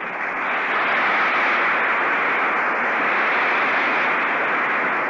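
Large audience applauding steadily, dull and muffled as on an old recording.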